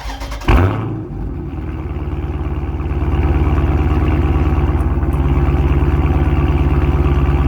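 Car engine starting with a loud burst about half a second in, then running with a steady pulsing rumble that grows louder about three seconds in.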